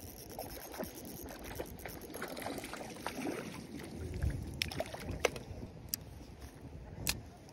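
Water splashing and sloshing, with scattered sharp clicks and knocks.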